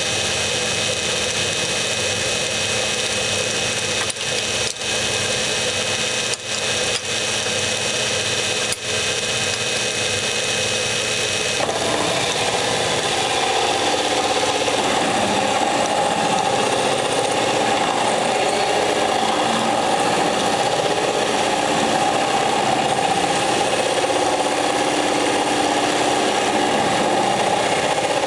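A metal lathe running steadily with its motor whine. About twelve seconds in, a rougher cutting noise joins it and continues: the end mill is boring out the workpiece.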